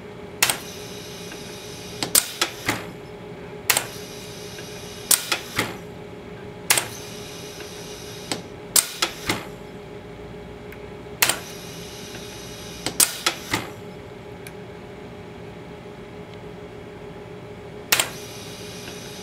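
Toroid hook-winding machine running, its mechanism making sharp clacks every second or two, often two or three in quick succession, as it winds wire onto a small core. A steady low hum runs beneath.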